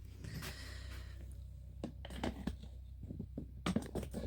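Faint scattered clicks and knocks of handling over a steady low hum, with a soft hiss in the first second or so.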